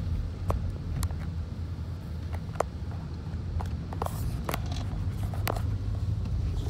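Steady low road and engine rumble heard inside the cabin of a moving car, with a few light clicks and taps scattered through it.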